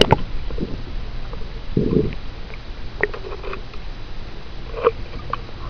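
Swimming-pool water heard with the microphone underwater: a muffled low rumble, with a short low whoosh about two seconds in and a few faint clicks later.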